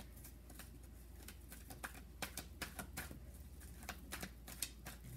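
A deck of oracle cards being shuffled by hand: irregular light clicks and snaps of the cards, over a low steady hum.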